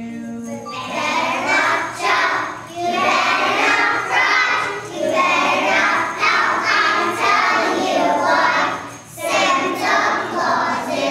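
A group of young children singing a song together, starting about a second in.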